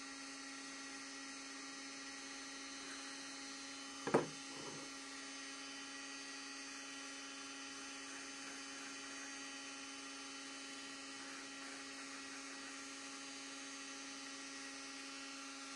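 Steady electric hum, with one short sharp knock about four seconds in and a fainter one just after it.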